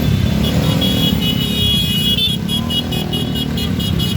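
Roadside traffic noise: the steady rumble of passing vehicle engines. Over it a high, thin tone starts about half a second in and breaks into rapid short beeps, about six a second, from about halfway through.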